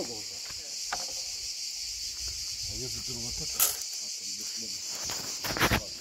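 Cicadas shrilling in the trees, a steady high-pitched chorus. A sharp knock comes about three and a half seconds in, and a quick cluster of knocks near the end.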